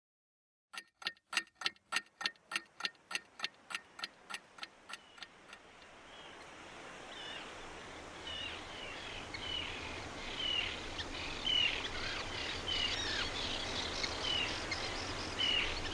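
A clock ticking steadily, about three and a half ticks a second, fading away over the first five seconds. Then birds chirping over a steady background noise that slowly grows louder.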